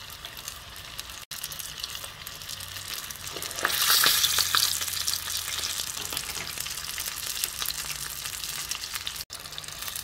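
Tempura-battered prawns deep-frying in hot oil in a pot: a steady crackling sizzle that flares up loud for about a second around four seconds in.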